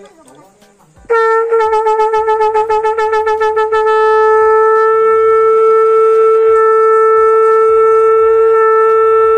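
A turra, a brass horn of the Gond rituals, blown in one long loud note that starts about a second in. The note wavers in quick pulses for the first few seconds, then holds steady.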